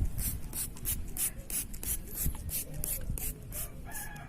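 Hand trigger spray bottle spritzing over and over, about three short hissing sprays a second, misting diluted fabric softener onto a hanging carpet. A rooster crows briefly near the end.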